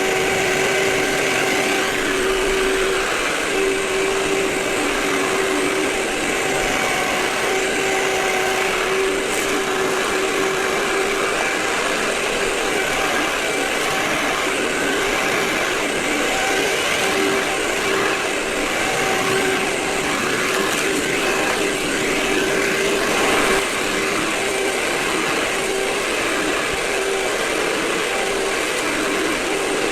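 Vacuum cleaner running continuously: a steady motor whine over rushing air, the whine dropping out and returning now and then.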